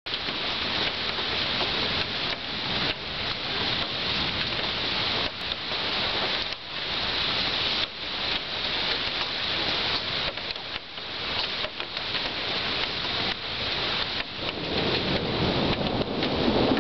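Rain falling steadily in a thunderstorm, with a low rumble of thunder building near the end.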